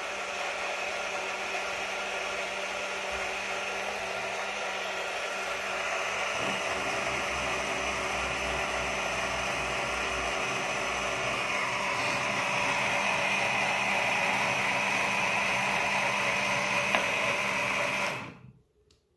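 TTLIFE battery-powered portable blender running steadily, its small motor and stainless steel blades whirring through a pink drink in the glass cup. The motor is switched off at the base button near the end and the sound cuts off abruptly.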